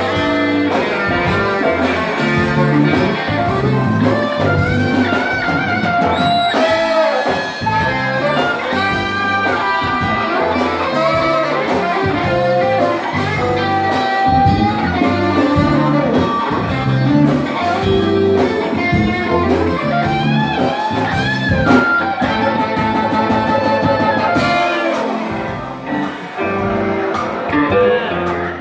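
A live band playing Ethiopian pop music, with electric guitar and electric bass over a steady beat and melody lines on top.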